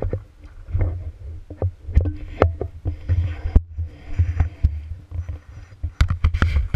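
Irregular knocks and clatter over a low rumble, picked up by a camera mounted on a pogo stick as the stick is bounced and jolted. There is a quick run of close knocks near the end.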